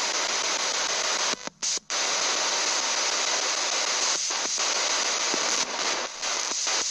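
Spirit box sweeping through radio frequencies: a steady hiss of static cut by short dropouts, twice in quick succession about a second and a half in, then briefly again later.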